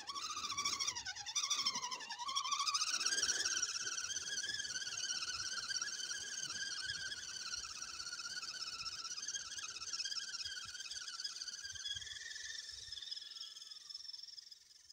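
Redcat Everest 10 RC rock crawler's electric motor and gears whining as it drives through snow. The pitch dips twice in the first two seconds as it works up a snow bank, then holds steady, and the sound falls away near the end as the truck moves off.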